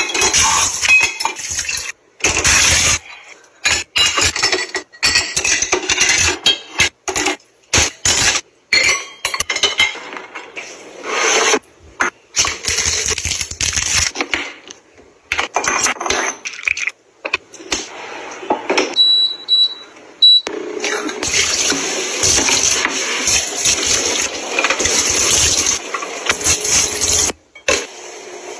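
Dishes and glassware clinking and clattering as a dishwasher's racks are loaded, in short choppy bursts. Three or four short high beeps come about two-thirds of the way in, followed by a steady rushing hiss.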